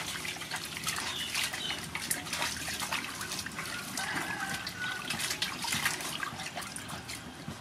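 Water splashing and sloshing in a metal basin as a peeled bamboo shoot is turned and rubbed by hand to wash it, with many small splashes throughout.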